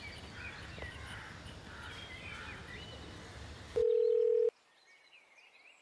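Faint birds chirping over a low outdoor hum. About four seconds in, this gives way to a single steady electronic beep, like a phone tone, held for under a second.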